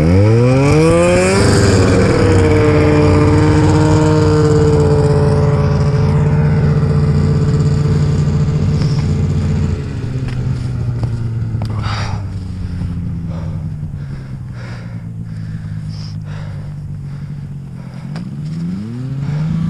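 Snowmobile engine revving up at the start, then running at a steady high pitch for several seconds before easing off about halfway through; it revs up again near the end. Scattered knocks and clatters come in the second half.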